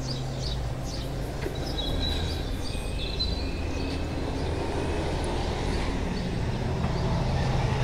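Steady city street traffic noise: a continuous hum and rush of vehicles on the road below. A few faint high chirps come through about two to three seconds in.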